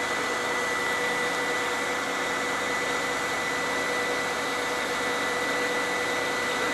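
Steady whirring drone of a fishing boat's engine running, with a constant thin whine over an even hiss.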